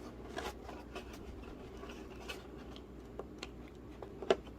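Hands scratching and fiddling at packaging, trying to free the robot vacuum's stuck spinning side brushes: faint scraping and rustling with scattered small clicks, and one sharper click near the end.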